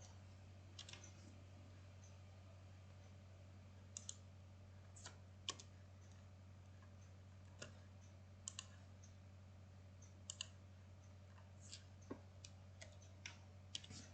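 Scattered computer mouse clicks and key presses, about a dozen sharp separate clicks, several in quick pairs like double-clicks, over a faint steady low hum.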